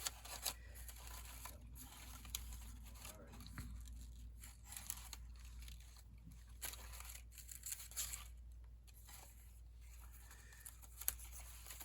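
Paper rustling and crinkling as small cut-out paper pieces are handled, with scattered short ticks and scrapes.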